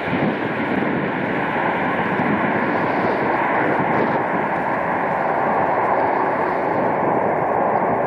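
Jet airliner's turbofan engines running loud and steady, a broad rush with a thin, steady whine above it.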